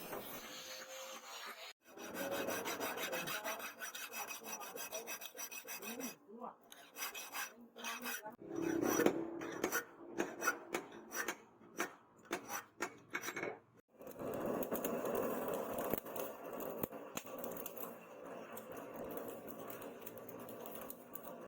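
Hand filing: a file rasping in repeated back-and-forth strokes, with separate strokes standing out in the middle section. Sudden cuts break the sound at about two seconds in and again near the middle.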